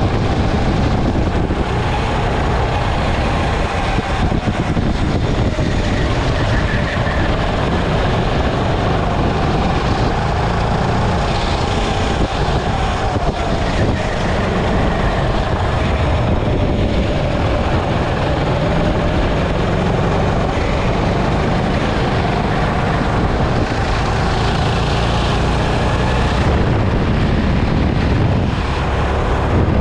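Sodi hire go-kart running at speed, heard from on board. Its motor tone drifts up and down with the driving, over steady wind noise on the microphone.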